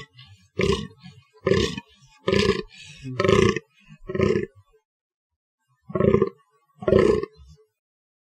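Fallow deer buck giving its rutting groans: short, deep, hoarse calls about once a second, about eight in all, with a pause of over a second about five seconds in.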